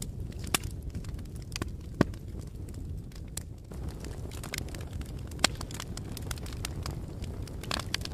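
Wood fire crackling: a steady low rush of burning with frequent sharp snaps and pops, three of them louder than the rest, about half a second, two seconds and five and a half seconds in.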